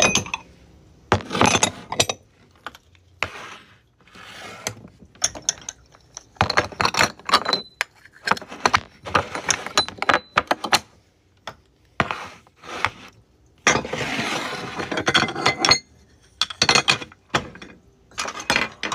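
Restaurant dishware (ceramic bowls, plates and small sauce cups) clinking and clattering as it is set down and stacked on a wooden table, in irregular bursts of knocks. About three quarters of the way through there is a longer, unbroken stretch of clatter.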